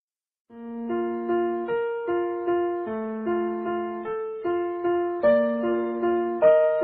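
Gentle piano music: single notes in a repeating pattern, about two or three a second, starting about half a second in after a brief silence.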